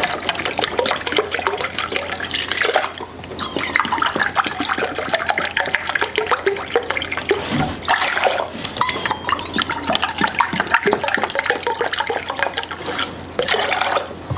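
Liquid running and splashing with a dense, crackly bubbling noise, broken by short pauses about three seconds in and again near the end.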